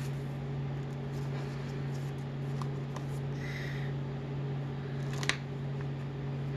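Paper pages and envelope flaps of a handmade junk journal being handled and turned, with light rustles, faint ticks and one sharp tap about five seconds in, over a steady low hum.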